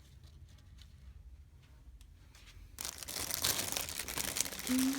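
Fresh cabbage leaves being torn and handled, a loud crackly crinkling and tearing that starts suddenly about three seconds in, after faint clicks.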